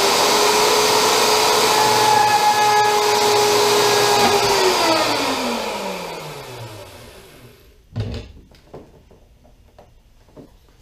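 Handheld electric router running at full speed with a steady whine, then switched off and spinning down, its pitch falling over about three seconds. A single thump follows near the end.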